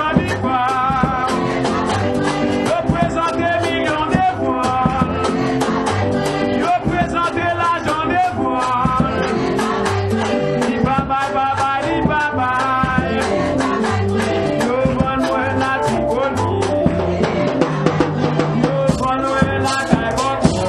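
A gospel song: a voice singing over instruments with a steady beat.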